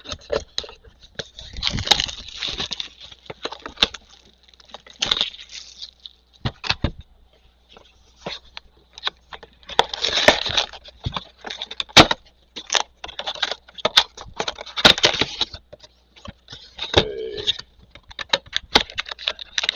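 A trading-card Mega box being torn open and emptied of its packs: crinkling wrap and cardboard rustling in irregular bursts, with sharp clicks and snaps.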